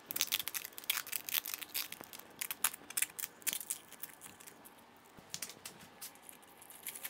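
Duct tape being peeled and unwound from a bicycle frame tube, a run of crackling rips with papery crinkling, busiest in the first few seconds and thinning out after. The tape is coming off a cured epoxy-and-carbon-fibre repair wrap.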